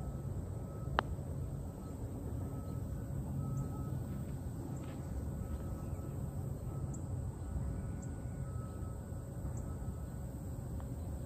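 A single sharp click of a putter striking a golf ball about a second in, over a steady low outdoor rumble and a faint high tone that comes and goes.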